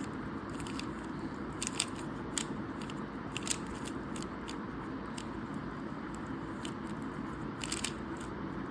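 Plastic Rubik's Cube being turned by hand: scattered sharp clicks of the layers snapping into place, bunched around two and three and a half seconds in and again near the end, over a steady hiss.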